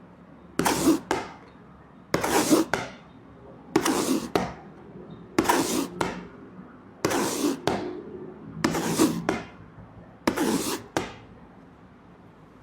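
Recorded heart sounds played for auscultation: six slow beats about a second and a half apart, each a rough noisy stretch closed by a sharp knock.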